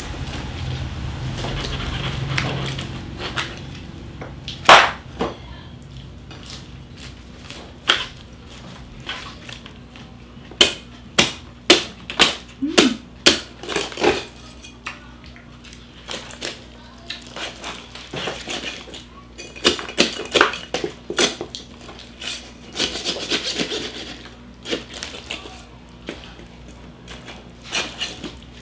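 Knife and cleaver cutting through a whole roast pig: repeated sharp knocks of the blade, some in quick runs, with crunching of the crisp roasted skin.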